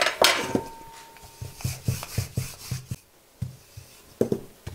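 Wooden rolling pin rolling out almond shortcrust dough on a floured worktop: a series of low knocks, about four a second through the middle, as the pin is pushed back and forth.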